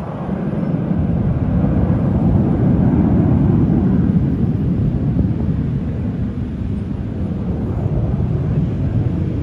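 Jet aircraft flying past: a broad engine rumble that builds over the first few seconds, peaks about three seconds in, then slowly eases off.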